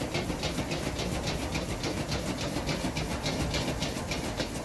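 Metal ladle scraping and tossing rice in a wok over a high gas wok burner: quick, evenly repeated scrapes, several a second, over the steady rush of the burner flame.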